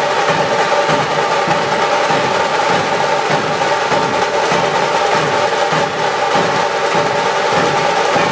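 Dhol-tasha drum troupe playing: massed dhol barrel drums and tasha drums beating together in a loud, continuous rhythm, with a steady ringing overtone above the drum strokes.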